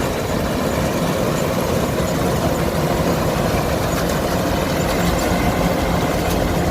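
Kubota DC105X combine harvester running, its diesel engine giving a loud, steady drone.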